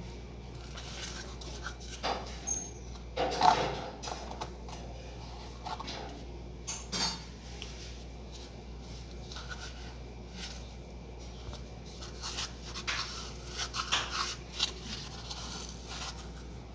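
A plastic mould being handled over dry moulded sand-cement shapes, making scattered scrapes, taps and rustles. The loudest knock comes about three and a half seconds in, and a run of small clicks and scrapes comes in the last few seconds.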